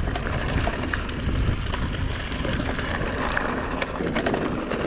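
Mountain bike riding down a rough forest trail: wind on the microphone and tyres rolling over dirt and stones, with many small clicks and rattles from the bike.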